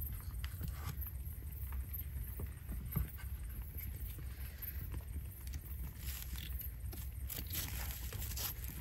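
Light knocks and scrapes of wood against the stones of a fire pit as a plank is lifted aside and the ashes are raked with a stick. A sharper knock comes about three seconds in, and rustling scrapes near the end, over a steady low rumble.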